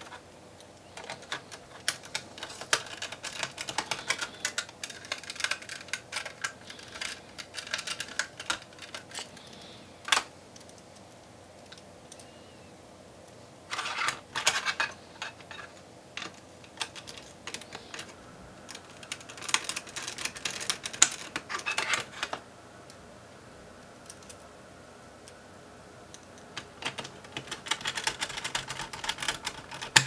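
Small Phillips screwdriver driving screws into a 2.5-inch SSD's metal mounting bracket: spells of rapid light clicking and metal scraping, four bursts with short quiet gaps between them.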